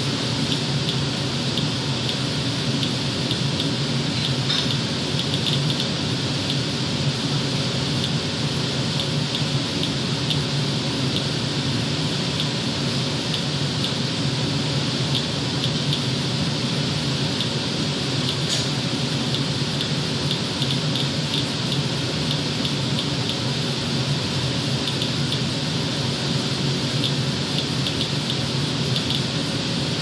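Geiger counter clicking at random intervals as it counts radiation, the faint clicks coming irregularly over a steady hiss.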